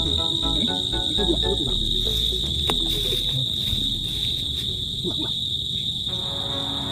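Crickets chirring in one steady, unbroken high-pitched drone.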